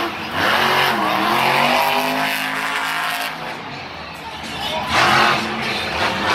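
Monster truck engine revving, its pitch sliding down and back up, then a loud burst of hard revving about five seconds in as the truck takes a jump.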